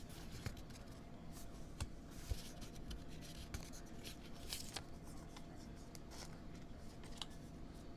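Trading cards being handled: faint rustling with a few scattered light clicks and taps.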